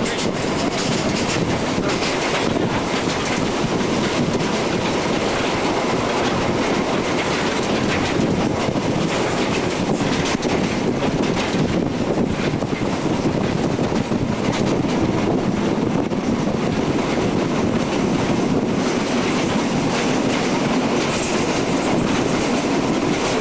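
Steady running noise of a train pulled by a small steam locomotive, heard from an open passenger wagon: wheels on the rails, with scattered faint knocks.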